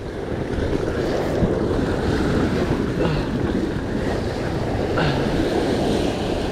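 Ocean surf breaking and churning against rocks, with wind on the microphone; a steady, loud wash of noise.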